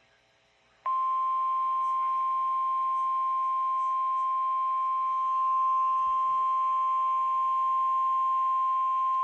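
About a second of near silence, then the single steady pitch of a NOAA Weather Radio alert tone begins abruptly and holds unbroken: the attention signal announcing a National Weather Service severe thunderstorm warning.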